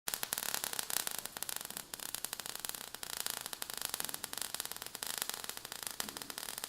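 Faint crackling static with a steady hiss, many small irregular clicks and no steady tone.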